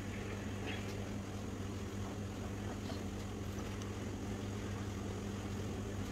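A steady low machine hum with an even hiss beneath it, and a couple of faint light clicks.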